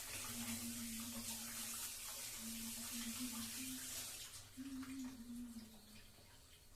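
Water running from a kitchen tap, cut off about four seconds in, with a faint low wavering hum underneath.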